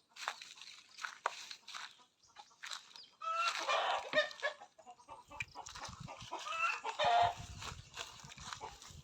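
Chickens (Rhode Island Reds and Black Australorps) clucking, with two longer, louder calls, one about three and a half seconds in and one about seven seconds in.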